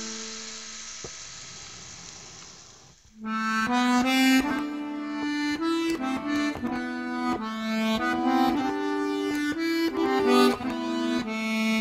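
A small motor whirring and fading away over the first three seconds, then instrumental music with a quick melody of held notes starts suddenly and carries on.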